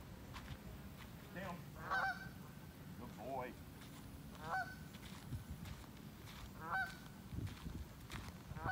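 A flock of Canada geese on the water honking, with several separate honks a second or two apart.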